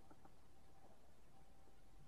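Near silence: faint room tone with low rumble and hiss.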